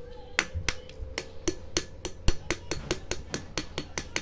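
Sharp clicks and cracks, about four a second, as pliers squeeze and crush the plastic case of a power MOSFET.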